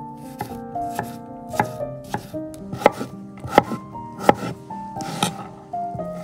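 Santoku knife slicing through cucumber onto an end-grain wooden cutting board: a series of crisp knife strikes on the wood, roughly one every three-quarters of a second, getting sharper after about a second and a half. Faint background music plays underneath.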